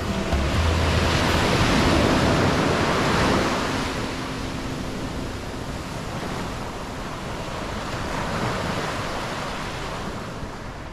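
Sea surf breaking and washing up the shore, swelling loudest about two seconds in and then easing to a steady wash.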